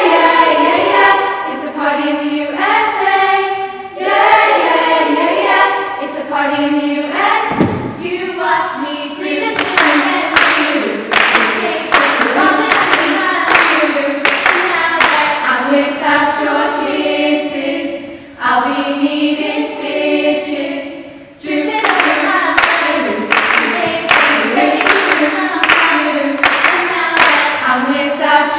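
Girls' choir singing a cappella in harmony. A single low thump comes about a quarter of the way in, and rhythmic hand claps then join the singing.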